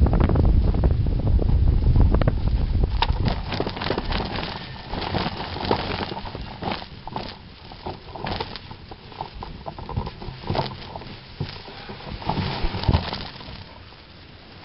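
Wind buffeting the microphone of a hang glider fades over the first few seconds as it slows to land. Then tall dry grass brushes and crackles against the glider and camera in a long run of short swishes and knocks.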